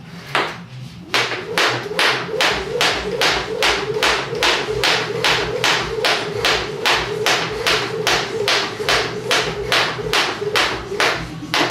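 Crossrope 1¼ lb Power Cable, a weighted jump rope, slapping the floor on each turn in a steady rhythm of about two and a half strikes a second. A single strike comes just before the steady run begins, about a second in.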